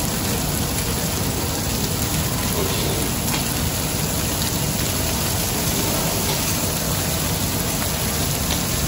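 Lamb chops sizzling steadily on a hot flat-top griddle, a dense, even, rain-like hiss.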